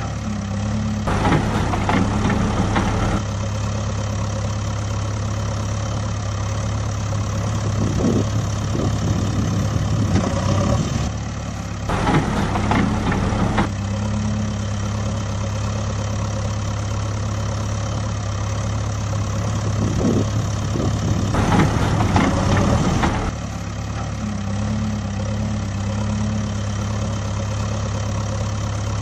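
Engine idling sound of a backhoe loader, steady throughout, with three louder, rougher stretches that start and stop abruptly: about a second in, around twelve seconds, and around twenty-one seconds.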